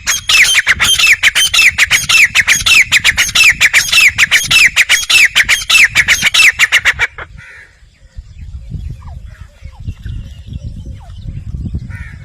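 Grey francolin calling: a loud, fast run of repeated harsh notes that stops about seven seconds in, after which only a low rumble and a few faint calls remain.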